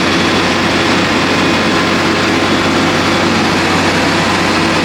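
A large engine running steadily at idle, a constant low hum with no change.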